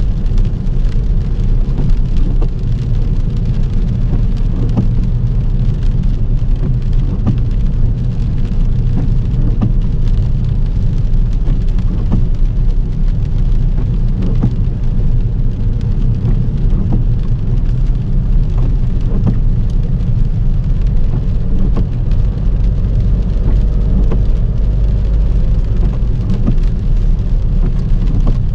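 Rain hitting a car as it drives, many scattered drop ticks over a steady low rumble.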